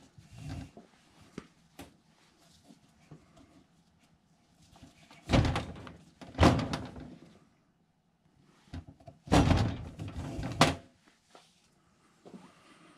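Rope being worked around a pole while a knot is tied: a few scraping, rubbing pulls of the line with light knocks, the loudest two near the middle and two more a few seconds later.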